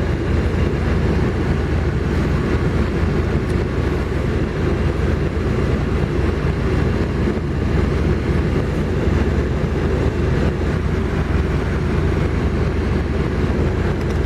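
VAZ-2111 engine idling with its electric radiator cooling fan running, a steady, unbroken noise. The fan is on because the engine is running hot.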